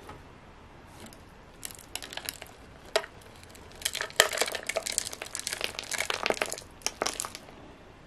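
Loose soil being pressed by hand into a thin clear plastic cup: crackling, crinkly rustles of soil and plastic, a few at first, then dense from about four seconds in until just before the end.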